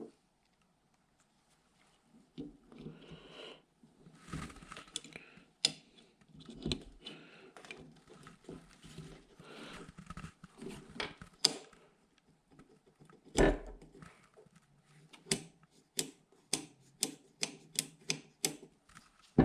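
Small metal and polymer parts of an AR-15 lower receiver being handled and fitted by hand, with scattered clicks and knocks and one heavier knock. Near the end comes a quick run of sharp clicks, about two or three a second.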